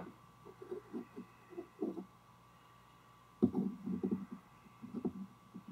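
Soft, irregular handling noises, low rubs and light knocks, as a piston with its rings is turned in the hands to set the ring gaps; a louder cluster comes about three and a half seconds in.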